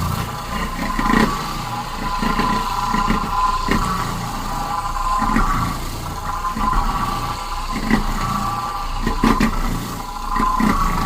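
Shark vacuum cleaner running over a heavily soiled carpet: a steady motor whine with surges and crackles roughly every second as it works through the hair and debris.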